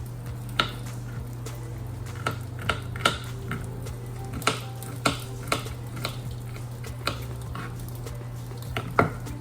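Kitchen knife knocking on a cutting board while garlic cloves are chopped: about a dozen sharp, irregular knocks with uneven gaps, over a steady low hum.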